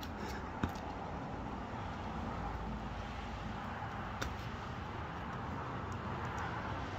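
Steady outdoor background noise, with two brief clicks: one about half a second in and another about four seconds in.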